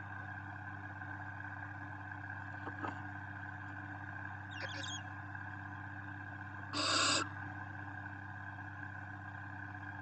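Barn owl nestling gives one harsh hissing call, about half a second long, about seven seconds in, over a steady low hum. A faint tap and a scratch come earlier.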